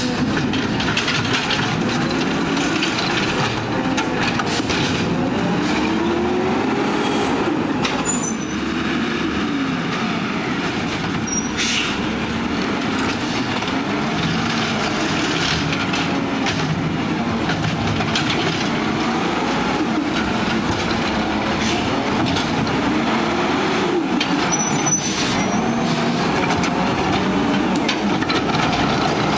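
McNeilus ZR automated side-loader garbage truck with its engine revved hard, rising and falling every few seconds as the driver runs the hydraulic arm at high RPM. Scattered knocks and bangs from the arm and carts sound over the engine.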